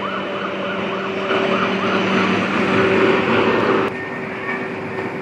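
D2-class Combino tram humming steadily as it stands at the stop. Over the hum is a fast warbling tone, about three rises and falls a second, that cuts off suddenly about four seconds in.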